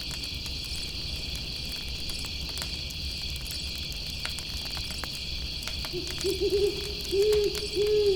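Steady high chirring of crickets with faint scattered crackles from a campfire; about six seconds in, an owl hoots: a quick run of short notes, then two longer hoots.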